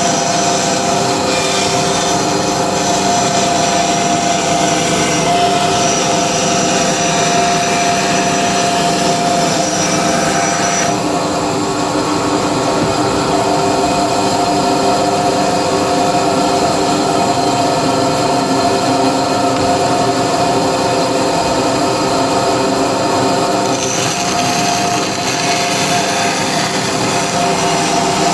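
A woodworking power tool running continuously, with a steady machine hum; its higher hiss eases off about a third of the way in and comes back near the end.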